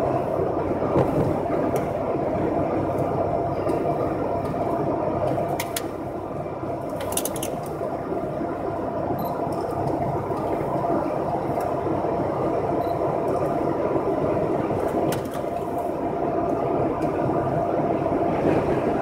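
Steady road noise of a car heard from inside the cabin: tyres on a wet highway and the engine running at cruising speed, with a few faint clicks.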